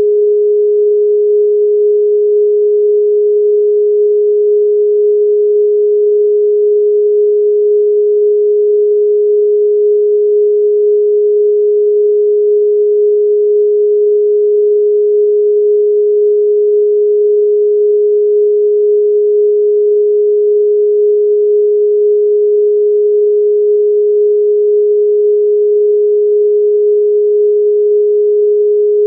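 A single steady pure sine tone a little below 500 Hz, held at one pitch and level throughout, with nothing else: a 'protection frequency' tone played for meditation.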